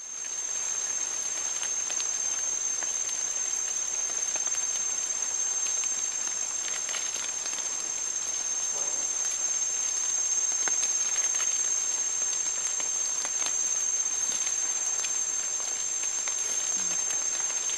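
Steady outdoor forest ambience: an even hiss with a constant high-pitched whine running through it, and scattered faint rustles and clicks.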